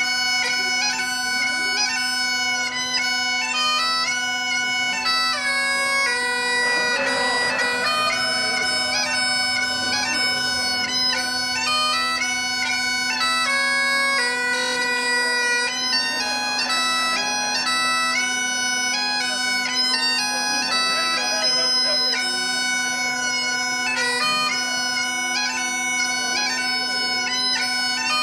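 Great Highland bagpipe playing a tune: the steady drones sound underneath while the chanter melody moves above them.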